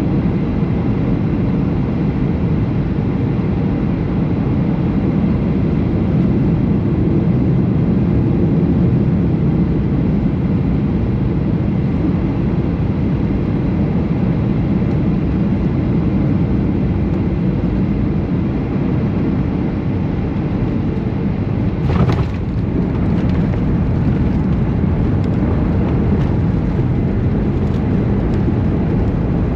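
Steady low cabin noise of a Boeing 737 heard from inside the cabin: engines and airflow. A brief sharp clatter comes about 22 seconds in, followed by a few faint clicks.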